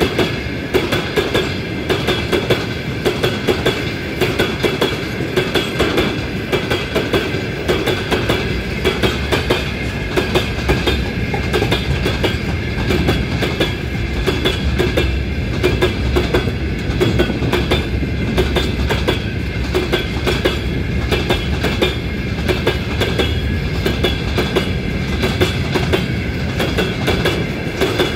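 Freight wagons, side-dump cars and open gondolas, rolling past close by. Their wheels clack steadily over the rail joints over a continuous rumble, with a thin steady high ringing above it.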